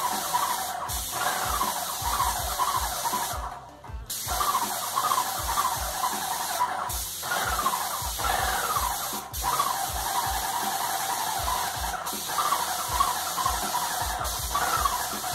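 Graco Magnum LTS 15 airless paint sprayer running while spraying latex paint: its electric piston pump cycles with a repeated falling squeal and low knocks over the hiss of the spray. The sound breaks off briefly about four seconds in.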